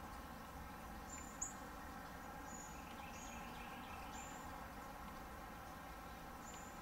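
Faint steady outdoor background hiss with about six short, very high, thin chirps scattered at uneven intervals, and some fainter chirping in the middle.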